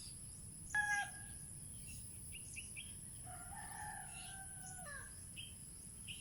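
A rooster crowing: a long held call with a falling end, about three to five seconds in. It follows a brief, louder pitched call about a second in. Small bird chirps and a steady high insect hiss are heard throughout.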